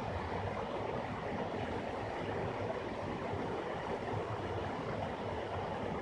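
Small waterfall cascading over rocks into a pool: a steady rush of falling water, mostly low-pitched.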